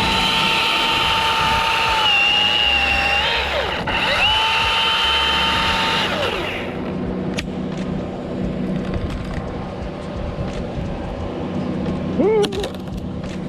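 Milwaukee battery-powered electric chainsaw running with a steady high whine while cutting limb wood. Its pitch sags under load about two seconds in, then the saw speeds up again and winds down about six seconds in.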